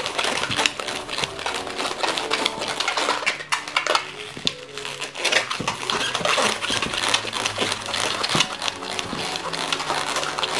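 Inflated 260 latex modelling balloon squeaking and creaking as hands twist it into small bubbles, a dense, irregular run of rubbery squeaks.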